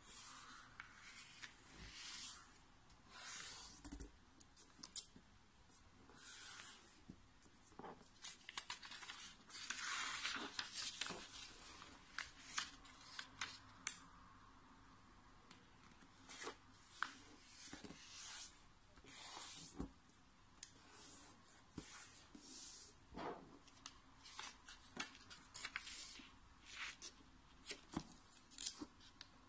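A square sheet of origami paper being folded and creased by hand on a tabletop: many short rustles and swishes as the paper is slid and smoothed, with sharp crackles where folds are pressed flat.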